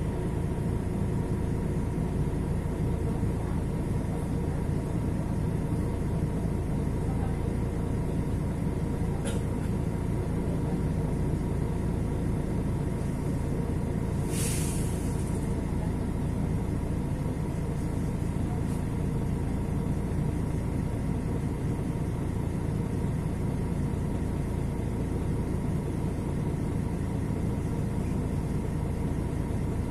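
Mercedes-Benz OM 457 LA inline-six turbodiesel of an articulated city bus idling steadily. A short hiss of compressed air about halfway through.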